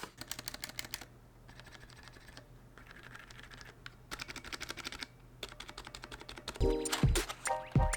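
Rapid clicking in short bursts of about a second each, typical of keys on a mechanical keyboard. Background music with a beat comes in about six and a half seconds in.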